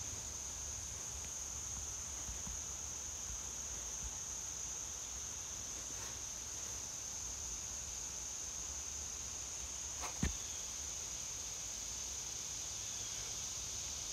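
Steady, high-pitched chorus of insects singing from the trees, with a single brief thump about ten seconds in.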